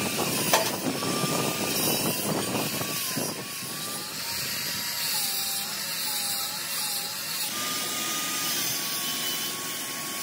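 Handheld electric angle grinder running against an alloy wheel as it turns on a lathe, grinding the metal smooth during repair of a cracked rim. The motor's whine sags and wavers as the disc is pressed in, then rises again about three-quarters of the way through.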